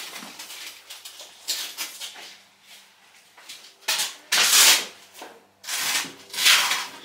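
Velcro straps on a horse's travel boots being pulled open: several short tearing sounds, the loudest about halfway through.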